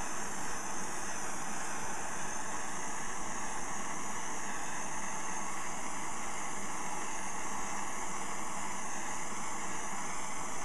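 Small handheld cooking gas torch burning with a steady hiss, its flame playing on a small iron armature that is being heated for bluing.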